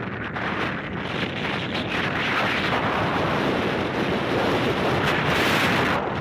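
Wind buffeting the microphone of a camera on a moving vehicle, a steady rushing noise that swells now and then.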